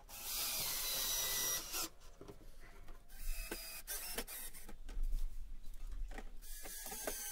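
Bosch cordless drill-driver driving screws into a plastic window frame, in three runs of a second or so each with a high motor whine and short pauses between.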